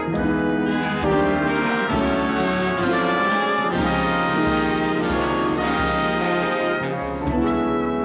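Jazz big band playing live: the trumpet, trombone and saxophone sections sound full chords together over the rhythm section, the harmony shifting every second or so.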